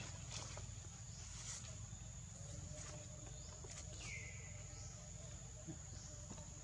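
Forest ambience: a steady high-pitched insect drone, a few faint clicks and rustles, and a single chirp about four seconds in that falls and then holds.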